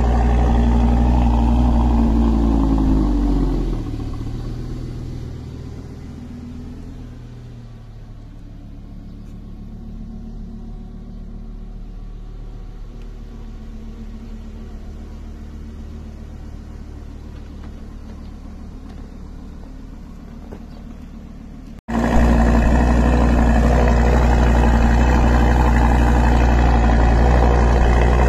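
Lamborghini Gallardo LP560-4's V10 engine idling. About three seconds in, its pitch drops and it grows quieter, then steadies. Near the end it is loud again, recorded close to the twin exhaust pipes.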